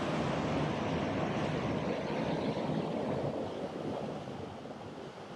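Mountain stream rushing down a rocky cascade into a pool: a steady rush of white water, easing slightly near the end.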